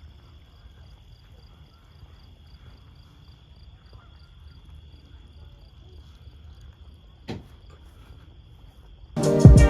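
Crickets chirping: a steady high trill with a second chirp pulsing about three times a second, over a faint low rumble. There is a single sharp click about seven seconds in. Loud music with a beat cuts in just before the end.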